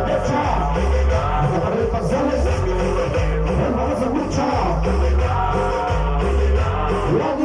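Cumbia music with singing, over a heavy, repeating bass beat.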